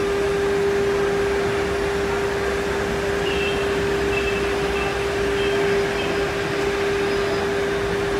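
CNC router spindle running at speed, a steady hum at one constant pitch over an even rushing noise.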